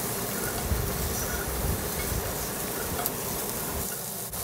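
Cubed potatoes, bottle gourd and green chillies frying in a little oil in a non-stick pan, a steady sizzle, with soft scraping as a spatula stirs them.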